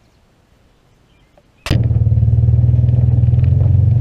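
Faint outdoor background, then from about a second and a half in a loud, steady low vehicle engine drone with light rattling over it.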